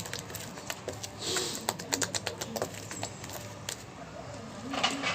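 Hands handling a plastic pot and slime: irregular light clicks and taps, with a short rustle about a second in and another near the end.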